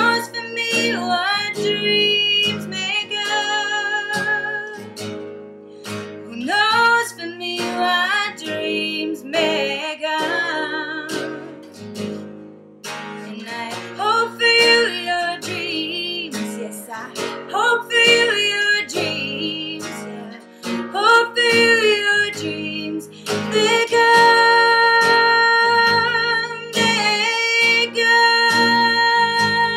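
A woman singing over a nylon-string classical guitar, with a long held note near the end.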